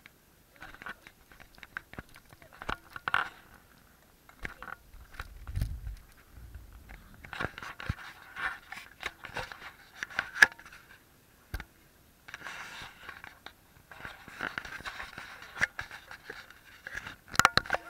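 Camera handling noise: the mic rubbing and knocking against a jacket, giving irregular crackling scrapes and clicks, with a low thump about five and a half seconds in and a quick run of sharp knocks near the end.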